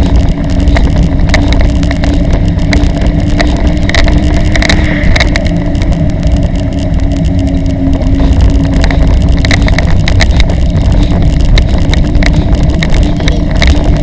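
Wind buffeting the microphone of a camera riding along on a bicycle: a loud, steady rumble, with frequent small clicks and rattles from the child trailer rolling over the street.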